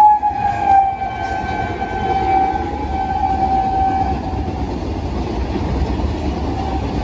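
A WAG-5 electric locomotive's horn held as one long steady note that dips slightly in pitch about a second in and fades out around four seconds in, over the steady rumble of a long rake of freight wagons rolling past.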